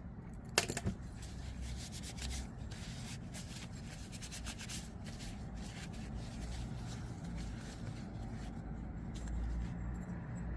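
Small metal and scale parts of a disassembled folding knife being handled: rubbing and light scraping with a run of faint clicks, and one sharp click about half a second in.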